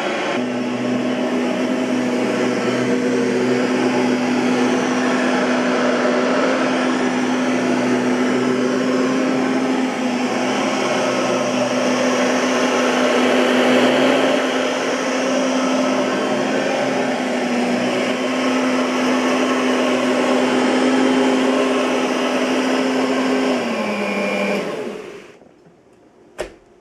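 Oreck XL21 upright vacuum cleaner running steadily with a constant motor hum. Near the end it is switched off: the hum falls in pitch and the noise dies away as the motor winds down. A single sharp click follows shortly after.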